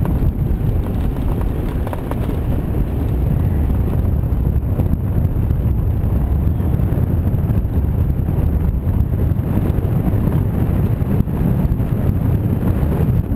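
Steady wind buffeting on the microphone and low road rumble from a human-powered pedal car moving at speed, heard from a camera mounted on the car; no engine.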